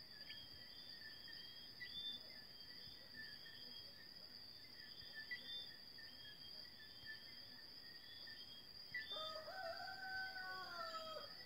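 A faint rooster crow, one long call of about two seconds near the end, holding its pitch and then dropping away. Under it runs a steady high insect-like drone with short high chirps scattered through.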